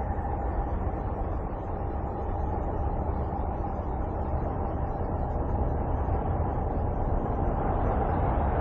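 Electromagnetic emissions from the planet Uranus converted into sound: a steady rushing drone over a deep rumble, with a faint held tone that fades in the middle and comes back near the end.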